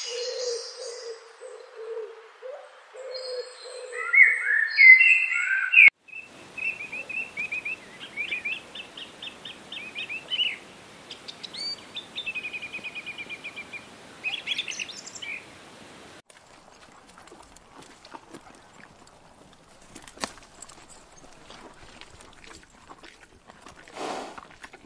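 Birds chirping and calling, with quick runs of repeated high notes, for the first two-thirds. The last third holds only faint scattered clicks and rustles.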